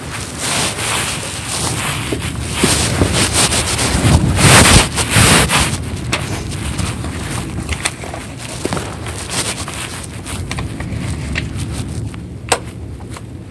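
Paper printouts in a binder being handled and passed over close to the microphone: irregular rustling and crackling with scattered clicks. It is loudest about four to six seconds in, with one sharp click near the end.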